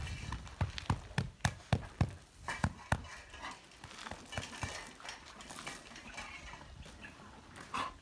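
Dogs eating: a quick, irregular run of sharp clicks and knocks in the first three seconds, then softer, scattered noises.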